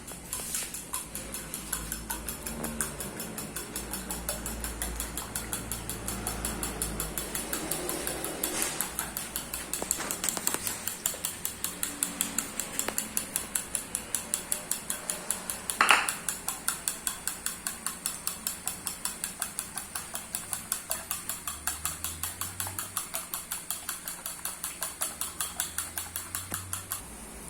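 Raw eggs being beaten in a bowl, the utensil clicking against the bowl in a steady rhythm of about four strokes a second, with one louder knock about halfway through.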